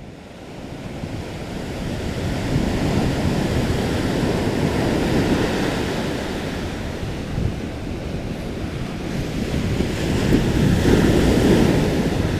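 Ocean surf breaking and washing up a sandy beach, with wind buffeting the microphone. It fades in over the first couple of seconds, and the wash swells about halfway through and again near the end.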